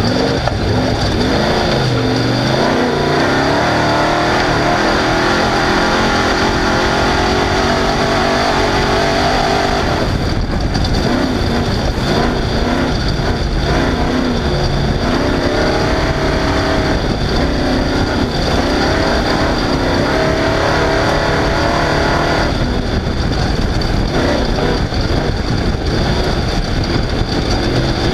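Off-road race truck's engine at racing speed, its revs climbing and falling over and over as it is driven hard, over a constant heavy rumble of vehicle and terrain noise. It lets off briefly a few times, the revs dropping and then building again.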